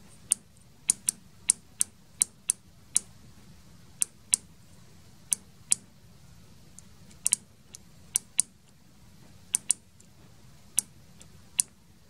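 Small SPDT microswitch from a microwave oven's door interlock being clicked by hand: sharp clicks at an uneven pace, often in close pairs as the lever is pressed and let go, a few of them faint. The owner says the switch, which has failed, is not clicking right and sometimes doesn't unclick.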